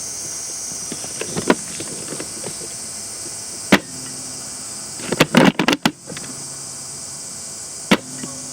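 Maruzen Type 96 bolt-action airsoft rifle: a sharp shot, a quick run of clacks as the bolt is cycled, then a second shot, over a steady high-pitched hiss.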